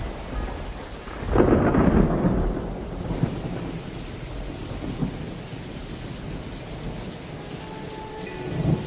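Steady rain with a rumble of thunder that swells about a second and a half in and dies away over the next couple of seconds. Faint held notes come in near the end.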